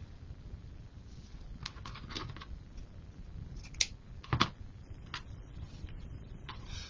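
Scattered light clicks and taps, two louder ones near the middle, from hands working wired-edge ribbon on a bow maker.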